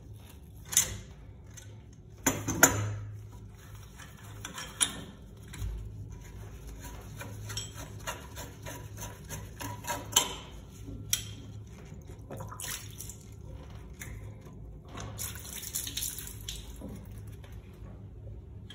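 Metal clinks and scrapes of a wrench and the chrome Sloan flush valve body being worked loose from its supply and spud couplings and lifted off. Several sharp clinks, the loudest about two and a half seconds in, and a longer rattling, rustling stretch about fifteen seconds in, over a low steady hum.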